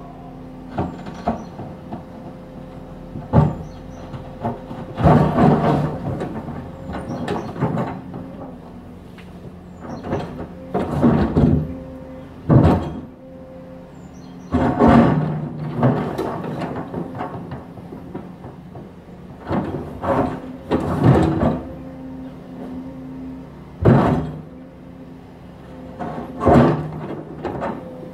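Excavator working a demolition: its engine runs steadily while the bucket repeatedly crunches and scrapes against brickwork and rubble. There are about a dozen loud crashes and grinding scrapes, some single and some in clusters lasting a second or two.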